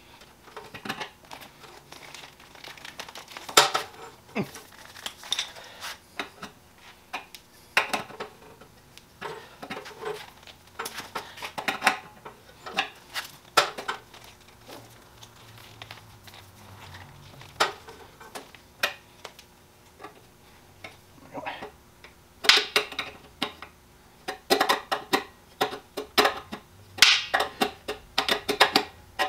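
Wrench and metal fittings clinking and tapping as a hose and fittings are worked loose from an air compressor's regulator: scattered sharp clicks and scrapes, busiest in the last several seconds.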